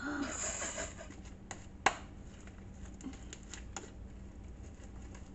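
Slime being squeezed and kneaded by hand, giving irregular small clicks and crackles, with a hiss in the first second and one sharp snap about two seconds in.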